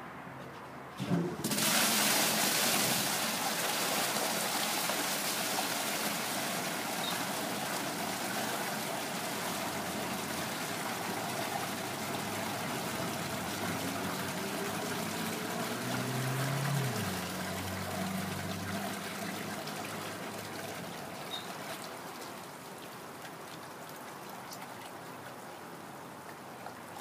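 A heavy stream of water gushes out of a PVC pipe into a plastic tub, pumped at about three gallons a second by a FlowFriend pump. It starts suddenly about a second in, runs as a steady loud rush while the tub fills, and grows somewhat quieter in the second half.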